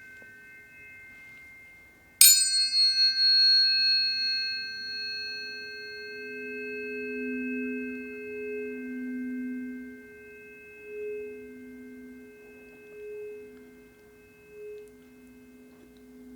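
Several tuning forks ringing with pure, steady tones. A fork is struck sharply about two seconds in, giving a bright metallic ping whose high overtones die away within a few seconds and leave a sustained tone. The lower tones swell and waver in loudness.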